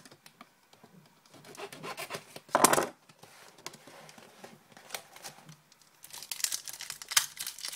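Trading-card hobby box being opened by hand: light cardboard rustling with one short, loud tear about two and a half seconds in, then the crinkle of the foil-wrapped card pack being handled near the end.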